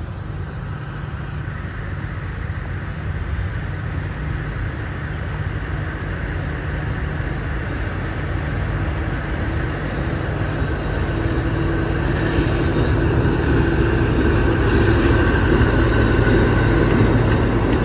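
A State Railway of Thailand diesel-electric locomotive, No. 4133, pulls a departing train past. Its engine runs with a steady low rumble that grows louder as it draws near. A steady hum joins in about two-thirds of the way through, as the locomotive comes alongside.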